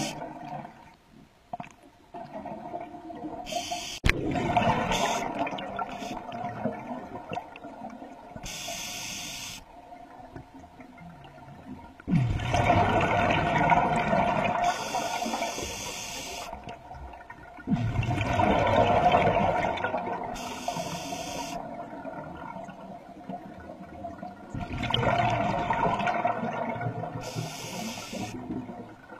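A scuba diver breathing through a regulator underwater: a short high hiss on each inhale and a long bubbling rush of exhaled bubbles, about four breaths.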